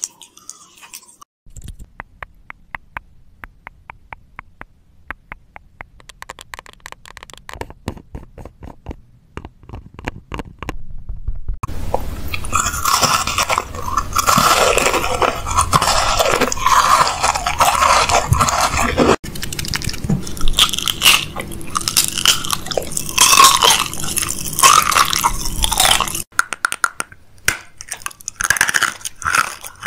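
Close-miked mouth eating sounds: quick wet clicks and smacks for the first ten seconds or so, then dense crunchy chewing and biting from about twelve seconds in, thinning back to scattered clicks near the end.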